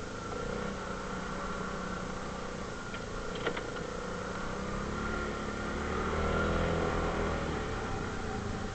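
ATV engine running, rising in pitch and getting louder about six seconds in, then easing off again. A couple of sharp clicks about three and a half seconds in.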